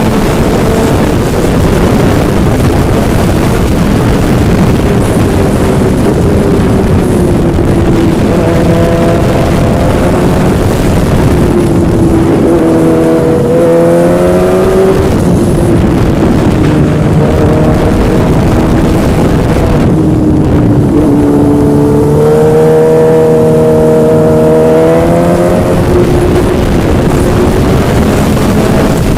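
Yamaha engine running under way beneath a heavy rush of wind and road noise, its pitch climbing twice as it accelerates, around the middle and again later, easing back in between.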